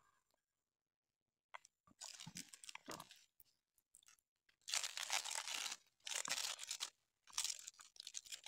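Dry leaves of a red ants' leaf nest crackling and tearing as the nest is broken apart and shaken over a woven bamboo tray. The rustling comes in several bursts, starting about two seconds in.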